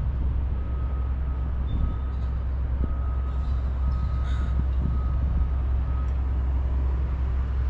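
Steady low rumble of a vehicle on the move, heard from inside it, with a faint high tone coming and going in short dashes.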